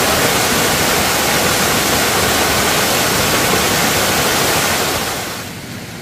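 Mountain stream cascading over rocks: a loud, steady rush of water that drops away sharply about five seconds in.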